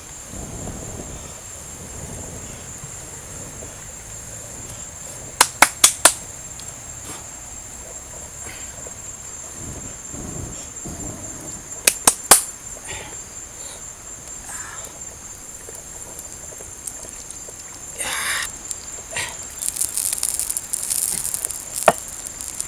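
Steady high-pitched insect chirring, like crickets, with sharp loud clicks in two quick clusters: four about five seconds in and three around twelve seconds.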